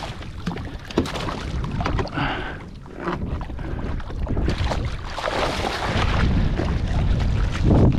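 Water splashing and sloshing as a barracuda thrashes in a landing net beside a kayak, with a sharp knock about a second in. Wind buffets the microphone as a low rumble in the last couple of seconds.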